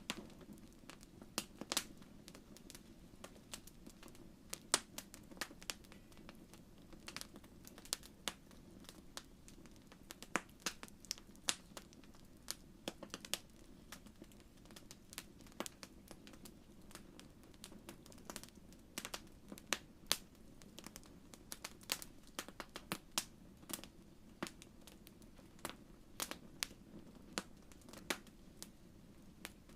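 Fireplace fire crackling: irregular sharp pops and snaps, several a second at times, over a faint steady low hum.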